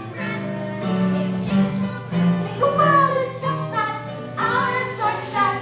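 Singing of a musical-theatre show tune over instrumental accompaniment, the sung notes wavering with vibrato above steady low bass notes.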